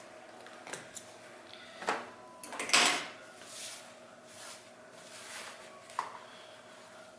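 Handling noises at a sewing machine: a few sharp clicks and a loud scraping rustle about two and a half seconds in, as the marine vinyl sample and the machine are worked by hand.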